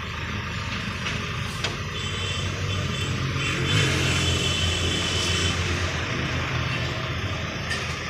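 Diesel engine of a Hydra pick-and-carry crane running as it lifts a bundle of steel pipes, its speed and level rising for a couple of seconds in the middle, with a faint high whine over it.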